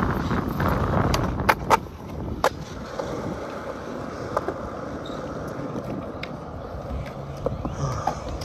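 Skateboard wheels rolling on concrete, loud for the first two seconds and then quieter. Three sharp clacks come between about one and a half and two and a half seconds in, with fainter ticks after them.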